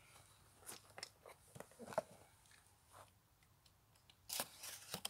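Cardboard box being handled and set down, with a few light knocks and scrapes, then a short, sharp scrape about four seconds in as a utility knife is drawn across the box's sealing tape.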